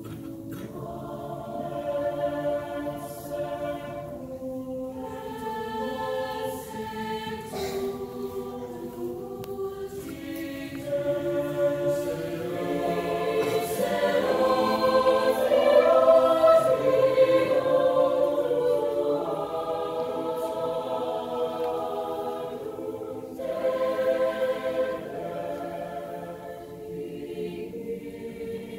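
Mixed choir of boys and girls singing a slow piece in long held phrases, with brief pauses between phrases. It swells to its loudest about halfway through, then eases off.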